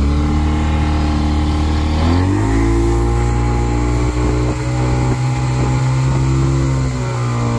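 Yamaha outboard motor driving a speedboat, its revs climbing about two seconds in and then holding steady at speed, easing off slightly near the end.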